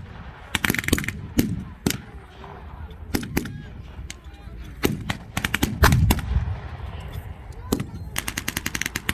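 Battle-reenactment blank gunfire: scattered single rifle shots and short machine-gun bursts. A quick burst comes about half a second in, and a faster one of roughly a dozen rounds comes near the end.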